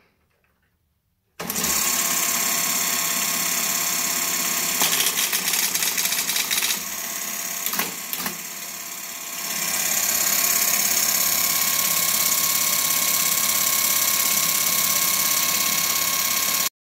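SEL Lo2000 electromechanical teletype starting up about a second and a half in and running with a loud, steady mechanical whir, with a run of rapid clicks from its keys and mechanism in the middle. The sound cuts off abruptly near the end.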